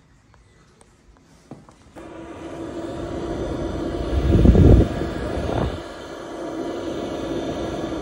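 Warm air rushing out of a Chinese diesel air heater's wall outlet nozzle, with the heater blower's steady hum. It starts about two seconds in, and air buffets the microphone into a loud low rumble about four to five seconds in as it comes right up to the grille.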